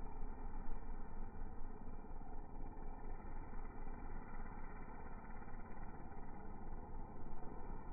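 An engine running steadily, dull and muffled, with no high end.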